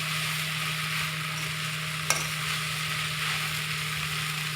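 Puffed-rice poha with onions and spices sizzling steadily in a pan on the stove, with a single sharp click about two seconds in, typical of the stirring spoon tapping the pan. A steady low hum runs underneath.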